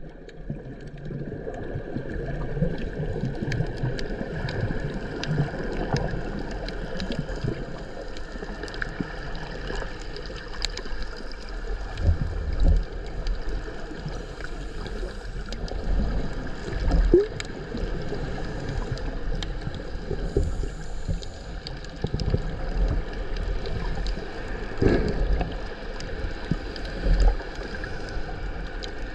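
Muffled underwater sound heard through a waterproof action-camera housing: water gurgling and sloshing, a faint steady hum beneath, and dull low thumps every few seconds.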